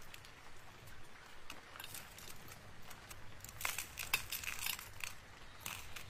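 Small clicks and light rustling of hands handling a rhinestone- and bead-covered paper journal page and a fine metal chain, with a quick run of louder clicks a little past halfway.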